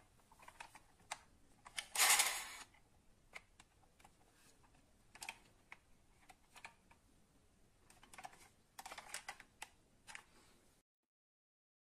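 Handling noise of a die-cast model bus being picked up and turned over in the hands: scattered small clicks and taps, a louder half-second scrape about two seconds in, and a quick cluster of taps near the end before the sound cuts off.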